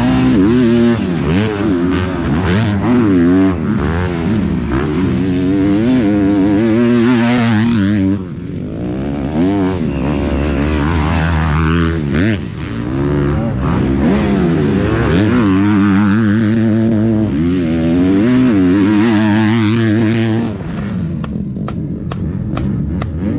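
Kawasaki motocross bike engine revving hard on a dirt track, the pitch climbing and dropping over and over as the rider works the throttle and gears. Near the end the engine fades, and a quick run of sharp taps follows, about three a second: a mallet striking a metal grate mat.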